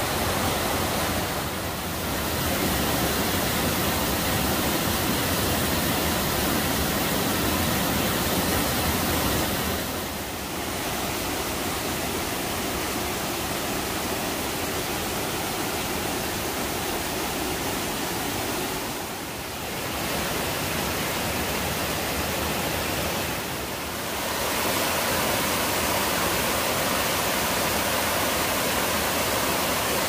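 Rain-swollen mountain stream rushing over mossy boulders in a chain of small waterfalls: a steady, loud rush of water that dips briefly and changes a little in tone three or four times.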